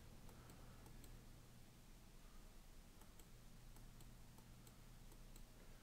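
Near silence: room tone with a low steady hum and faint, scattered computer mouse clicks.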